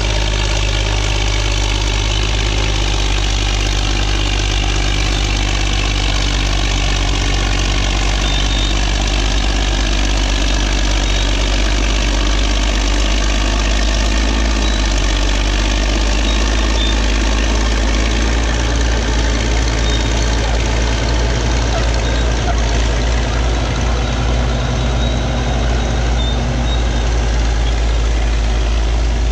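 Vintage Caterpillar D8 crawler dozer's diesel engine running steadily under load as its blade pushes dirt, with other old dozers working close by.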